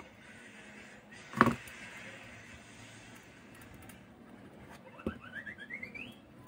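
Hands working on a graphics card on a workbench: one sharp knock about a second and a half in, then near the end a click and a quick run of squeaky ticks rising in pitch as the metal mounting bracket is worked off the card.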